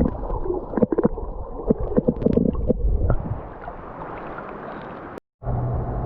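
Muffled creek water sloshing and gurgling around the microphone, with irregular knocks and splashes in the first three seconds, then a steadier low rush. After a sudden break about five seconds in, a steady rushing noise with a low hum takes over.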